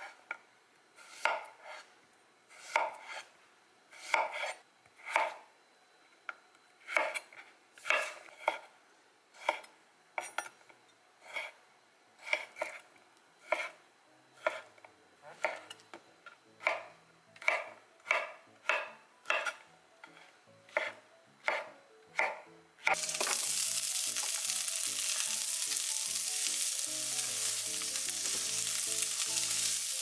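Kitchen knife slicing vegetables on a wooden cutting board, one cut about every second. About 23 seconds in this gives way to a steady loud sizzle as diced vegetables and ham fry in a hot pan.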